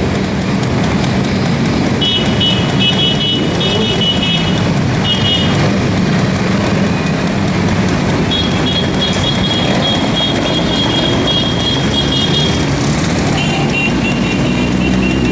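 A procession of motorcycles and scooters passing one after another, sportbikes and scooters mixed, with their engines running steadily. A high steady tone sounds on and off over the engines.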